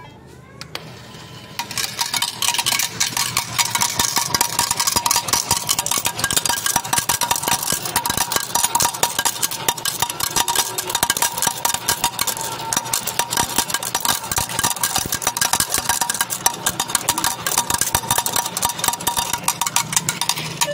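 Coins pouring from a fruit slot machine's hopper into its metal payout tray: a rapid, unbroken clatter of clinking coins that starts about a second and a half in, over a steady electronic tone from the machine.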